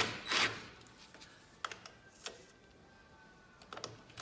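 Hand tools being handled at a steel brake drum housing: a short louder clatter at the start, then a few faint scattered clicks and taps over an otherwise quiet room.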